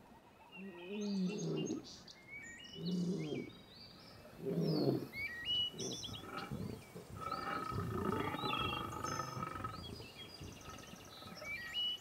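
Lions roaring: three low, pitched calls about two seconds apart, then a longer stretch of roaring in the middle. Small birds chirp in the background.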